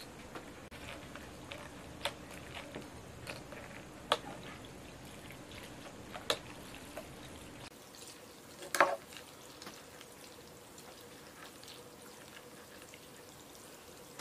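Metal serving tongs clicking and clinking against a ceramic plate and a glass bowl as food is moved and stirred, with soft wet sounds of chilled noodles in broth. There are a handful of sharp clinks, the loudest about nine seconds in.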